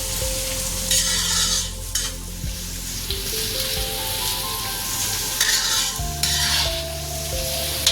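Food frying and sizzling in an iron kadhai as it is stirred, with two louder surges of sizzle, about a second in and again near six seconds.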